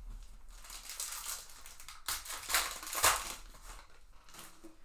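Wrapper of a 2021 Bowman baseball card pack being torn open and crinkled: a rustling with several sharper rips, loudest about two and a half to three seconds in.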